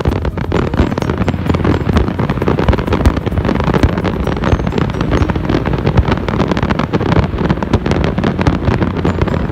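Fireworks barrage: many rapid, overlapping bangs and crackles over a continuous low rumble.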